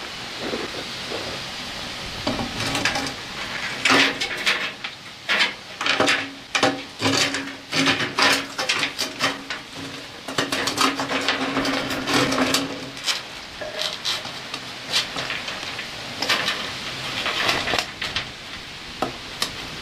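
Repeated knocks, clatters and scrapes of a plastic pipe and a metal drain-snake cable against the concrete walls of a septic tank riser as the cable is fished for and grabbed. A longer grinding scrape comes a little past halfway.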